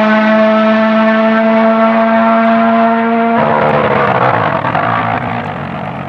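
Rally car engine held at steady high revs with a constant, even pitch; about three and a half seconds in it breaks off abruptly into a rougher, noisier engine sound that slowly fades away.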